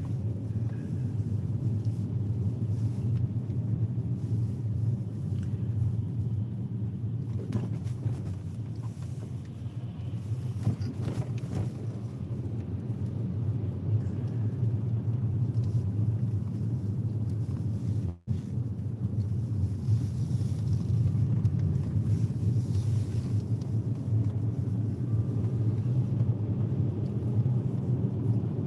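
Car driving along a highway: a steady low road and tyre rumble with engine noise underneath, cutting out for an instant about two-thirds of the way through.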